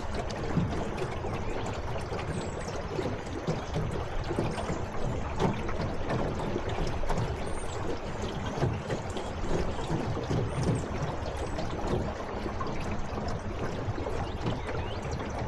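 Steady rushing and trickling of water, with small irregular splashes.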